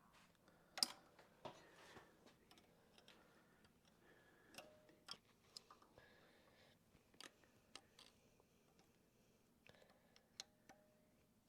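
Scattered faint metal clicks and taps from pliers working a split pin through a connecting-rod bolt, the sharpest about a second in, over near silence.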